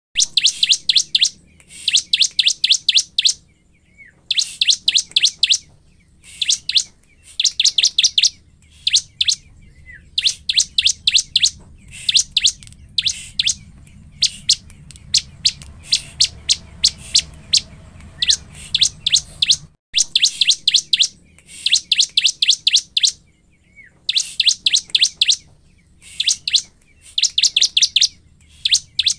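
A ciblek, a small prinia, singing in fast bursts of sharp, high chirps. Each burst is a run of about six to eight notes lasting around a second, repeated over and over with short pauses. This is the excited 'gacor' song used as a lure to provoke other ciblek.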